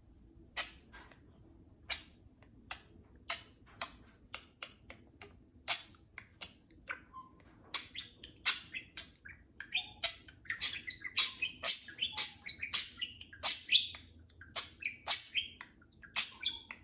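Pet budgerigars chirping: short, sharp, high chirps, spaced out at first and coming thick and fast in the second half.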